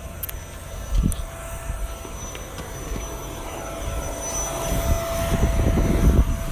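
A steady engine drone with a faint whine, growing louder over the last couple of seconds as it passes.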